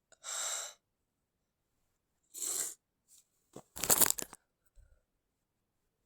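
A person stifling a sneeze: two short, hissing breaths in, then about four seconds in a held-in sneeze forced out as a brief crackling burst of air.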